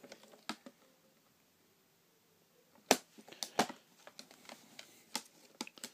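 A metal Blu-ray steelbook case handled and turned over on a table: a handful of sharp clicks and taps, the loudest about three seconds in, with quiet stretches between.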